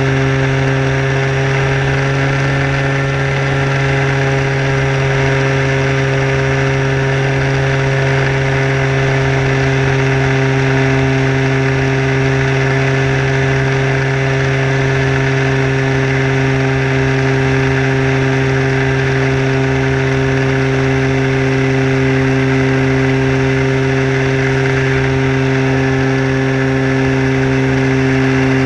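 Motor and propeller of a radio-controlled Sport Cub model airplane in flight, heard from a camera on board: a loud, steady drone whose pitch holds nearly constant at cruise throttle.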